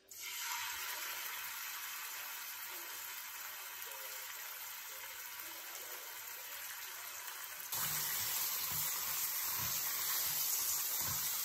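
Raw meat pieces sizzling in hot oil in a nonstick frying pan, a steady hiss. About eight seconds in the sizzle grows louder and tongs knock against the pan as the pieces are turned.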